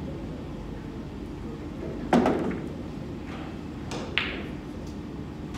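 Hard clacks of pool balls during play: a loud click about two seconds in and a sharper, ringing clack about four seconds in, with a few fainter knocks between.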